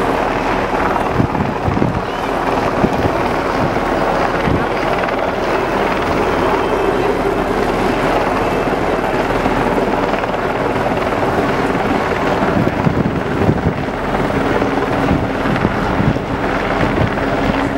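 A boat engine droning steadily at an even pitch, with wind buffeting the microphone and water noise over it.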